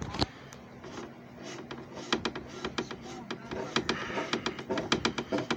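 JFJ Easy Pro disc repair machine running with a steady low motor hum. Sharp clicks and rattles come thick and fast from about two seconds in.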